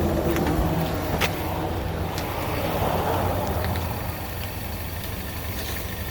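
A car running, heard from inside the cabin: a steady low engine and road rumble with a few light ticks.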